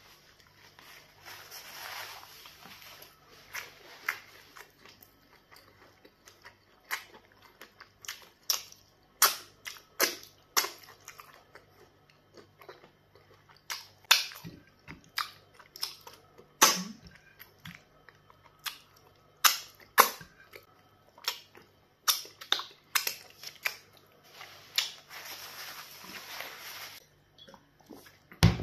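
Close-up mouth sounds of eating black soup by hand: irregular sharp wet lip smacks and finger-sucking clicks, with chewing. There are two softer, longer hissy stretches, one near the start and one near the end, and a low thump right at the end.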